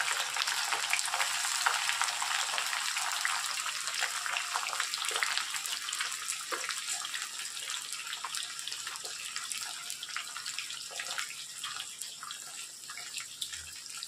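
Freshly added raw jackfruit pieces deep-frying in hot mustard oil in an iron kadhai, a dense sizzle full of fine crackles. The sizzle slowly dies down over the seconds.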